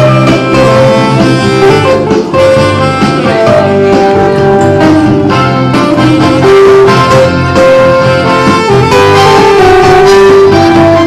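A live band playing an instrumental passage of a song: a held melody line over bass and chords, steady and loud throughout.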